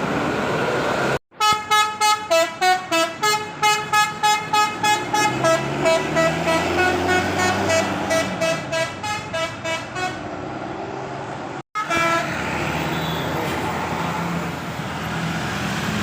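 A bus's telolet horn, a Basuri multi-tone musical horn, plays a tune of quick toots, about three a second, stepping between pitches and growing fainter towards the end. Vehicle noise runs before and after the tune.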